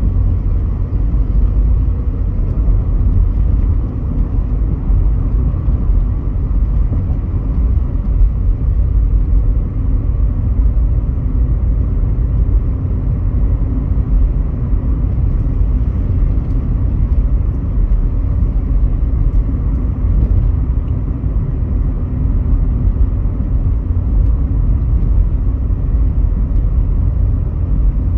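Volkswagen Polo GT cruising, heard from inside the cabin: steady low engine and road noise with no distinct events.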